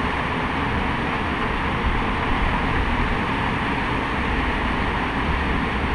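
Steady outdoor background noise: an even rumbling hiss with no distinct events.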